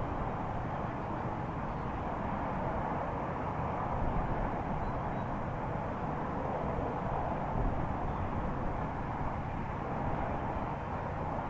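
Steady outdoor droning rumble without a clear pitch, of the kind posted as a strange sound from the sky.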